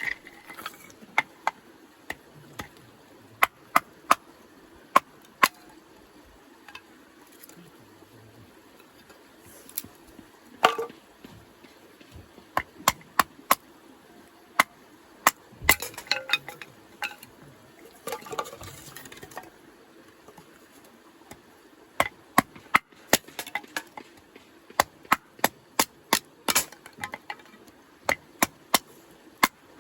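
Firewood burning in a flat fire pit, crackling with sharp, irregular pops, some in quick clusters.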